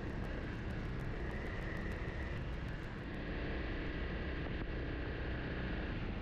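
Motorcycle running at a steady speed on the move, an even engine drone with no change in pitch.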